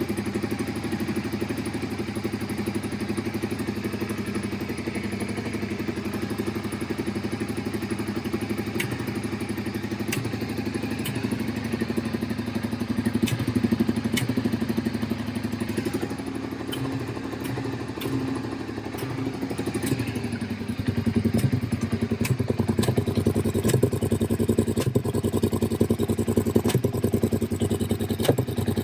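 Suzuki SV650's 90-degree V-twin engine running steadily, with scattered sharp clicks. About two-thirds of the way through it gets louder and its beat turns more uneven.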